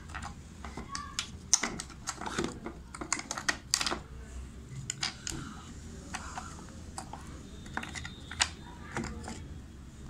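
Irregular light clicks and taps of hard plastic being handled: the pulsator (wash plate) of an LG top-loading washing machine and its lint filter, moved about by hand, with the clicks busiest in the first few seconds.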